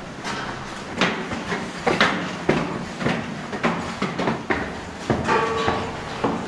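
Footsteps on concrete floor and stairs in a concrete gallery inside a dam, short sharp steps about twice a second.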